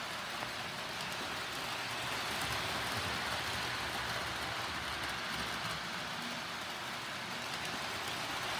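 Lionel Scout model train running around its track, a steady rolling rumble and hiss of its wheels on the rails.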